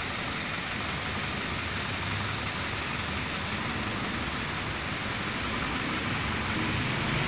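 Steady low hum and hiss of distant road traffic.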